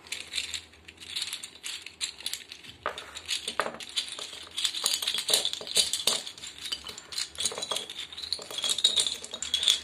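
Wooden sticks of a 24-piece interlocking burr puzzle clicking and rattling against one another as it is pulled apart by hand, with loose pieces clattering down. The clatter gets busier after about three seconds.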